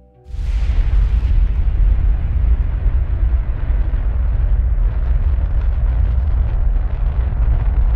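Rocket launch noise of the Space Shuttle's engines and boosters: a loud, deep, steady rumble that comes in suddenly just after the start.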